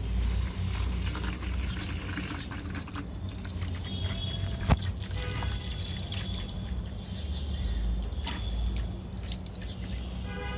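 Water from a garden hose pouring and splashing into a plastic bucket, with one sharp tap a little under halfway.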